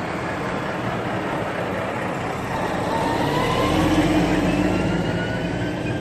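Vehicle running, a continuous rushing noise with a thin whine rising in pitch. It swells to its loudest about four seconds in, then eases off.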